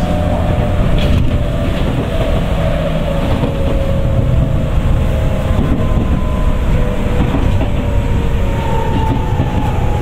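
Tokyu 9000 series electric train running, its early Hitachi GTO-VVVF inverter and traction motors whining in several tones that fall slowly in pitch over a steady rumble of wheels on rail.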